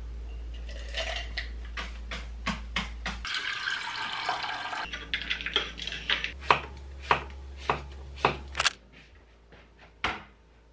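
Close kitchen handling sounds: glass jars clinking and tapping, a rushing pour or hiss lasting about a second and a half, then a stirring stick knocking in sharp taps against a ceramic mug. It grows quieter near the end, with one last knock.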